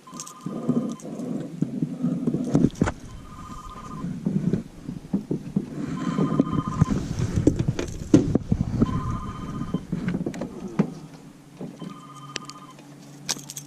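A phone ringing: a short electronic two-tone ring repeating about every three seconds, five times, over irregular knocks and handling noise.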